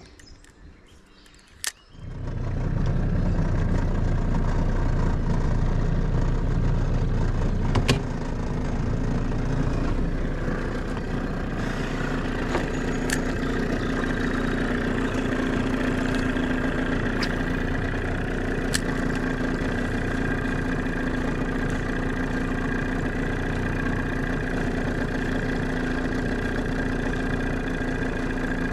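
Outboard motor on a small aluminium fishing boat starting about two seconds in and then running steadily. A sharp click comes a few seconds after it catches, after which it runs a little quieter with a steadier hum.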